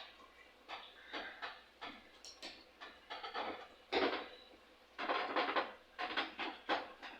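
Irregular clicks, clinks and scrapes of hands handling small metal parts and hose while fitting a fuel hose and its clamps to a lawn mower carburetor, with a louder clatter about four seconds in and a quick run of them near the end.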